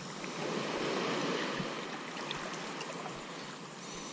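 Small waves washing and lapping against jetty rocks at the waterline, swelling louder in the first couple of seconds and then easing.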